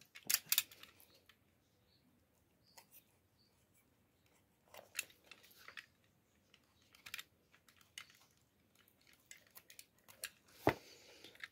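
Snap-off utility knife trimming excess material from the edge of a sandal sole: faint, scattered short cutting clicks and scrapes, a little louder near the start and near the end.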